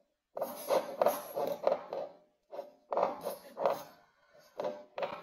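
Kinetic sand crunching and crackling as a plastic tool presses down into it in a glass cup, heard in three runs of quick, close-up crunches.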